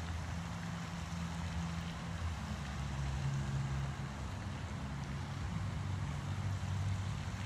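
A low, steady engine hum whose pitch shifts slightly a few seconds in, over a steady hiss.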